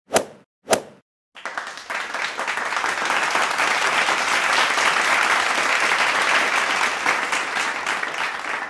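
Two single sharp claps, then a burst of audience applause that comes in about a second and a half later, holds dense and steady, and eases off slightly near the end.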